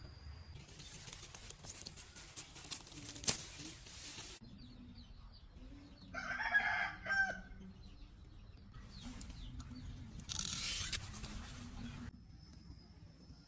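A rooster crows once, a call of a little over a second about six seconds in. Before and after it come stretches of rushing noise, with one sharp knock in the first.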